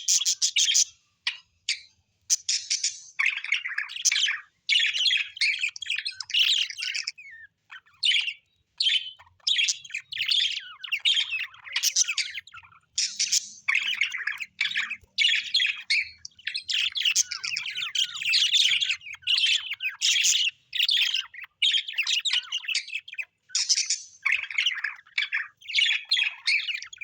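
Birds chirping in quick, busy bursts of high calls, one after another with short gaps between them.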